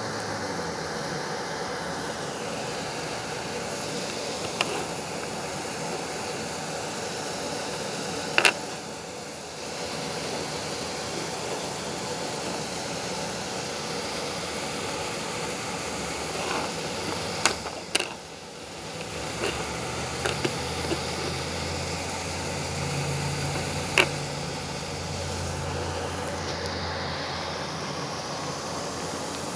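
Steady background noise with a low hum, broken by several short sharp clicks and knocks.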